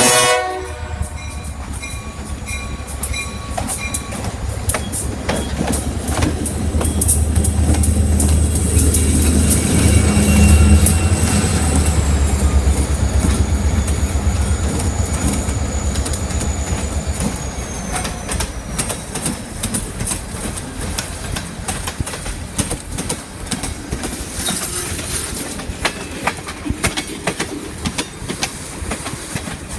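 L&C freight train 3821 passing close by. The horn cuts off right at the start. The diesel locomotive's engine rumble builds, is loudest about ten seconds in, and fades out by about twenty seconds. Throughout, the wheels clack over the rail joints and a thin high wheel squeal holds, then slides lower, while the cars roll past.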